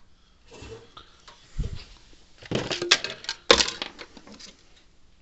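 Objects being handled on a workbench: a dull thump, then two short bursts of sharp clattering and knocking a little past the middle.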